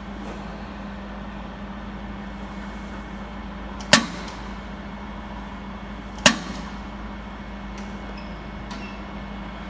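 Jewelry laser welder firing two single pulses, each a sharp snap, about two and a half seconds apart, over a steady low machine hum.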